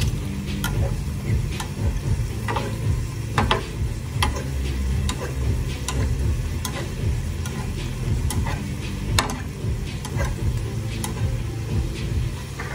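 Corn tortillas frying in shallow oil in a skillet, with irregular sharp clicks and ticks as a metal fork turns them against the pan. A steady low rumble runs underneath.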